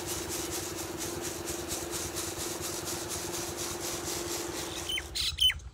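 Wheat grain poured in a stream onto a heap, a steady hiss, while an electric pedestal fan hums beside it to blow off the chaff as the grain is winnowed. Both stop abruptly about five seconds in, with a couple of clicks.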